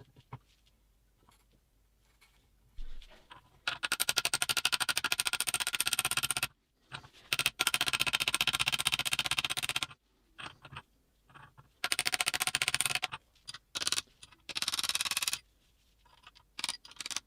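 Ratchet wrench clicking in fast runs: four bursts of rapid, even clicks lasting one to three seconds each, with a few short clicks between them, as fasteners are run down on the engine.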